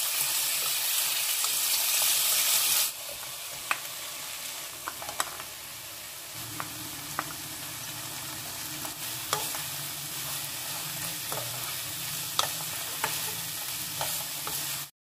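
Korean zucchini, onion and clams sizzling in oil in a frying pan as they are stir-fried with a wooden spatula. The sizzle is loud for about the first three seconds, then softer after a cut, with scattered sharp clicks of the spatula against the pan.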